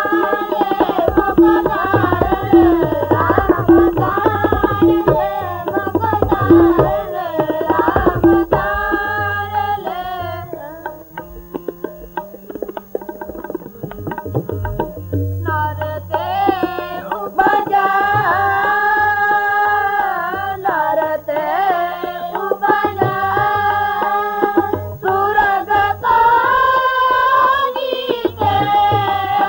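Sikh devotional kirtan: tabla with fast instrumental playing, easing into a quieter stretch of low tabla strokes about nine seconds in, then hymn singing over the tabla from about sixteen seconds in.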